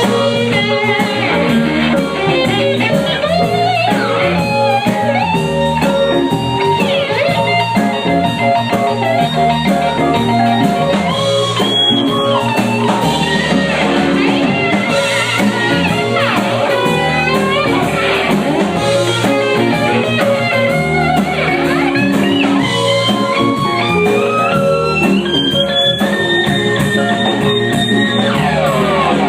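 Live blues-rock band playing an instrumental break: a lead guitar solo full of string bends, climbing to long high notes in the second half, over the rest of the band.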